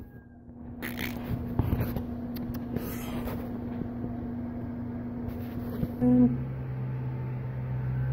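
A steady mechanical hum with scattered brief scrapes and rustles. About six seconds in, after a short louder burst, a deeper steady hum takes over.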